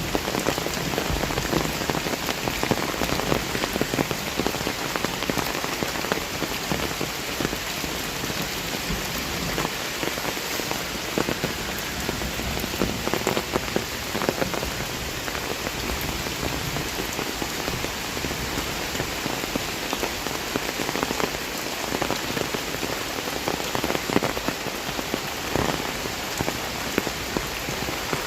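Heavy rain falling steadily, with close drops ticking individually through the even hiss of the downpour.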